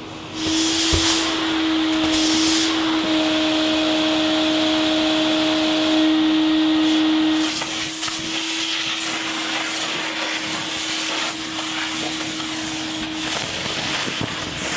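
Vacuum cleaner running with a steady motor hum and hiss. It starts about half a second in, is louder for the first half, then goes on somewhat quieter with scattered light clicks as the hose works along the baseboard.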